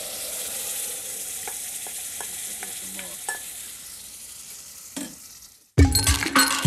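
Sauce sizzling as it hits hot olive oil and spices in a steel pot, the hiss dying down over several seconds, with a few light taps of a wooden spoon stirring it. Music with a beat cuts in near the end.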